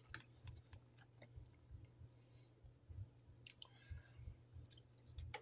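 Near silence with faint mouth sounds of someone tasting tzatziki: a few soft clicks and lip smacks scattered through, over a low steady hum.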